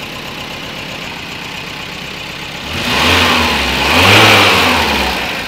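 VW Rabbit Pickup's petrol engine running at a fast idle, then revved twice, about three and four seconds in, before dropping back. The idle cannot be set lower, which the mechanic puts down to a distributor giving no advance.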